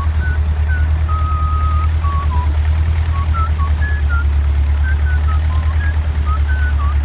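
A long-tail boat's engine running steadily with a deep, rapidly pulsing drone, while a person whistles a tune over it in short notes, holding one longer note about a second in.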